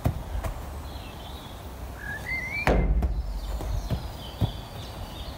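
A rugby ball, passed one-handed, strikes a wooden shed wall with a sharp thud about two and a half seconds in, followed by a lighter knock of the ball near the end. A bird chirps briefly just before the main hit.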